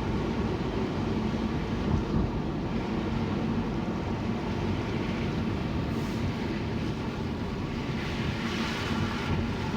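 Steady running noise of a vehicle on the move: a constant hum with an even hiss over it.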